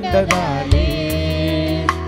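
Worship-song music: a steady keyboard chord under a long held, wavering sung note, with a few drum hits.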